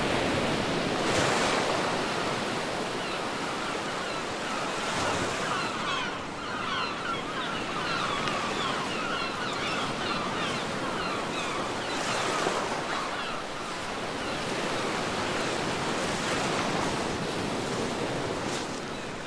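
Sea waves breaking and washing on a beach, a steady surf wash that swells up about four times as waves come in, with wind.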